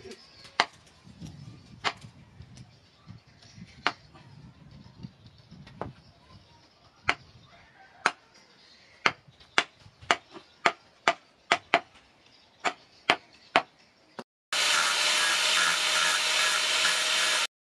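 Sharp wooden knocks as a sword's wooden handle is struck down on a steel post to drive it onto the tang: a few single knocks, then a quick run of about two a second. Near the end an angle grinder starts grinding the metal ferrule of the handle with a steady loud grinding noise.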